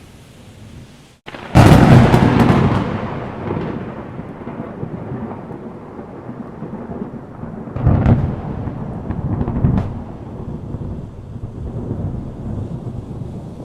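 Very close lightning strike. A split second of silence, then a sudden sharp thunderclap about a second and a half in that rolls into rumbling thunder fading over several seconds. Further cracks and rumbles of thunder come about 8 and 10 seconds in, over a steady hiss of rain and wind.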